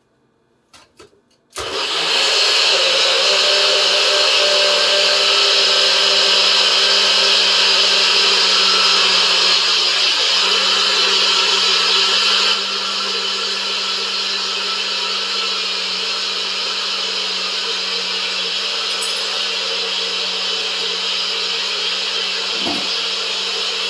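NutriBullet personal blender blending a smoothie of fruit, spinach and coconut water. After a couple of faint clicks, the motor starts abruptly about a second and a half in and runs steadily. It gets slightly quieter about halfway through.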